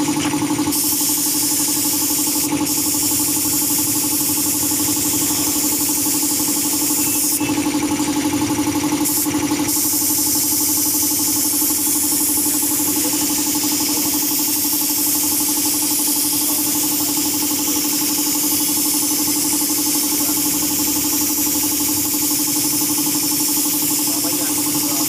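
Paint spray gun hissing steadily as it sprays, over the even drone of an air compressor running. The hiss brightens briefly a few times in the first ten seconds.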